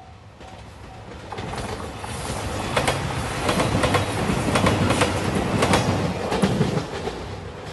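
JR Shikoku 2700 series diesel express train passing close by, its wheels clacking over rail joints. The sound builds from about a second in, is loudest for several seconds, then fades near the end. A level-crossing bell dings faintly in the first second.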